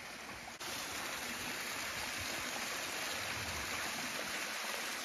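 Small waterfall pouring down a rock face into a lake: a steady rush and splash of falling water, a little louder from about half a second in.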